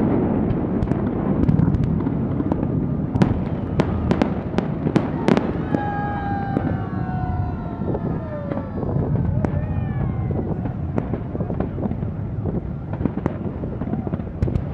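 Fireworks display: a steady run of bangs and crackling reports over a continuous low rumble of bursting shells. Several drawn-out falling tones sound in the middle.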